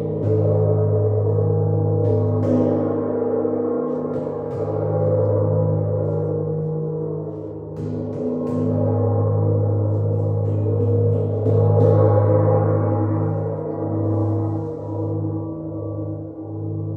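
Sound-healing metal instruments, gong-like, struck softly every few seconds and left ringing. The result is a deep, sustained, wavering drone with higher ringing tones above it.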